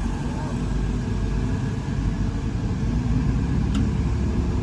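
Heavy diesel earthmoving machinery running steadily with a dense, low rumble, with one brief sharp click a little before the end.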